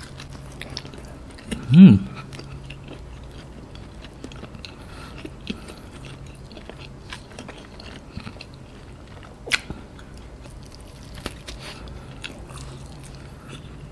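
Close-up chewing of a bite of fried chicken burger on a soft charcoal bun, with many small wet mouth clicks and crackles and one sharper click near the end. About two seconds in there is a brief hummed "mm" of approval.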